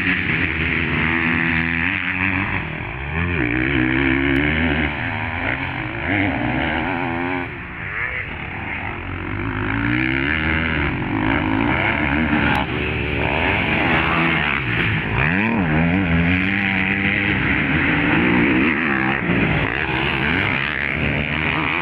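Several motocross motorcycles running on a dirt track, their engines revving up and dropping back over and over as they pass and overlap.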